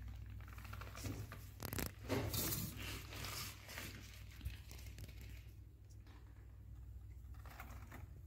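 Rustling and scuffling handling noise with a few light clicks, loudest in the first half and fading after about five seconds, over a steady low hum.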